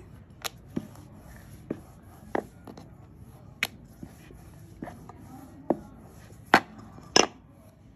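Irregular light clicks and knocks from hands and utensils working dough at a kitchen counter, about a dozen in all, the two loudest near the end.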